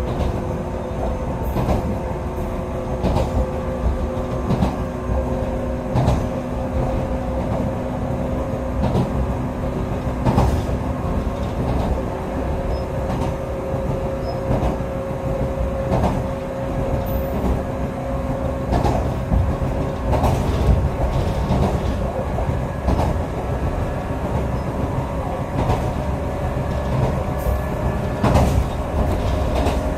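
Echizen Railway electric railcar running at steady speed, heard from inside the car. A low rumble and a steady motor whine made of several held tones sit under irregular knocks as the wheels pass over rail joints.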